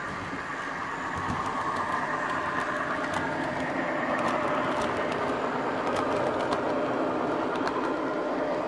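Model railway train running on the layout: a steady rumble that grows louder about a second in and eases off near the end, with light clicks scattered through it.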